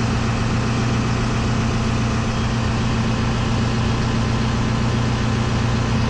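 Tadano 80-4 crane's diesel engine idling steadily with the air-conditioning compressor engaged, a constant even hum.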